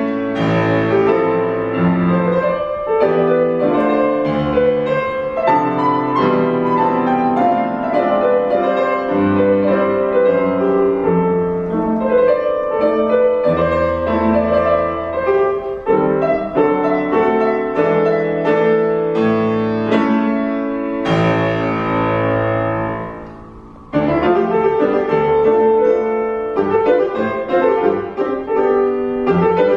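Solo grand piano playing a Romanian dance piece, fast runs of notes over a chordal bass. About 21 seconds in a chord is left to ring and die away, and about 24 seconds in a new section starts.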